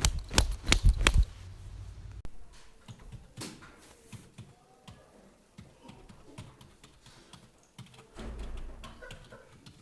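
A burst of four loud, sharp clicks in the first second or so, followed by lighter, irregular tapping and ticking, with a brief low rumble near the end.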